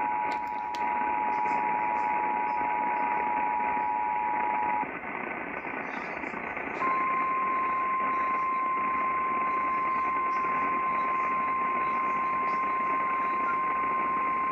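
Emergency Alert System attention signal, a steady two-tone alarm, sounding over radio static until about five seconds in. After a brief stretch of static alone, the NOAA Weather Radio single-tone warning alarm starts about seven seconds in and holds steady; it is the alert that precedes a tornado warning broadcast.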